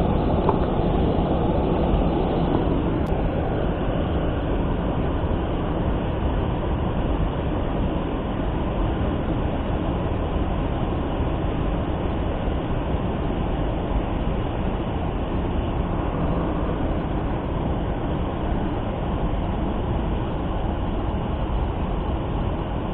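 Steady, unbroken rushing noise of a flowing trout stream.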